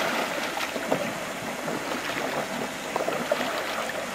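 Water trickling and splashing around a paddled canoe, with scattered small splashes and drips from paddle strokes.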